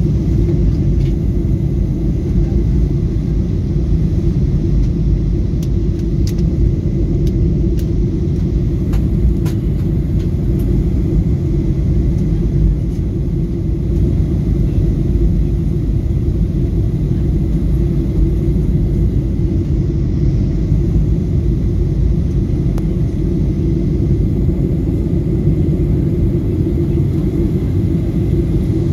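Steady low rumble of engine and airflow noise inside the cabin of a Boeing 737-800 in flight, heard from a window seat. It comes mainly from the CFM56-7B turbofans and the air rushing past the fuselage.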